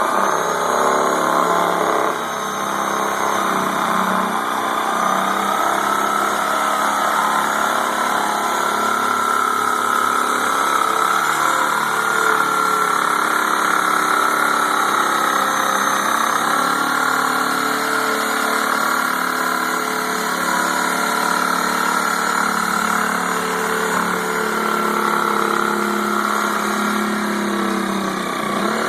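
Reciprocating saw (Sawzall) running steadily while splitting palm fronds lengthwise, its pitch shifting slightly as the load changes.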